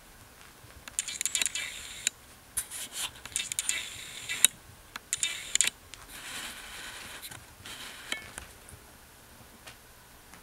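Exotic shorthair kittens' paws and claws scrabbling and scratching on a quilted bedspread as they play: irregular bursts of rustling with sharp clicks, which die down after about seven seconds.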